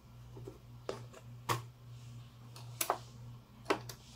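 Several sharp, separate clicks and taps as the metal needle plate is pressed and fitted back into place over the bobbin area of a sewing machine, including a quick double click near the middle.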